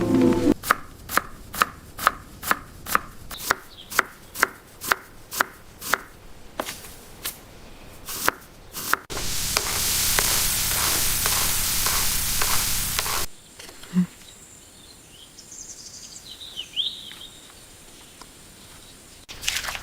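Knife chopping food on a board in a steady rhythm, about two strokes a second, for roughly nine seconds. Then a steady hiss for about four seconds that stops abruptly, followed by quiet with a few faint chirps.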